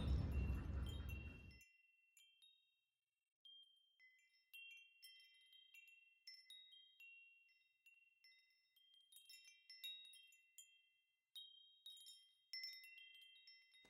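Outdoor background noise fades out in the first second and a half. Then faint wind-chime tones ring in a silent background: single high notes and small clusters, each ringing on briefly.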